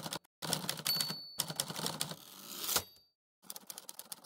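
Typewriter sound effect: rapid key clacks in several quick bursts with brief pauses between them, turning into a faster, quieter run of clicks near the end.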